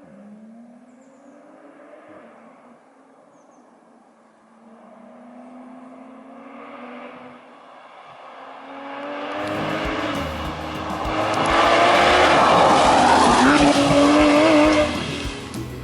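Porsche 991 GT3's naturally aspirated flat-six accelerating hard through a run of upshifts, each gear a rising engine note. It is faint at first and grows loud over the last several seconds, with tyre and wind noise, then drops off abruptly near the end.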